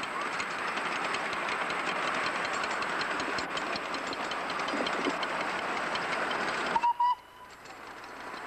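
Miniature passenger train rolling along its track, a steady rumble and rattle of wheels and cars with faint rail clicks. About seven seconds in there is a brief high beep, and the sound drops off sharply.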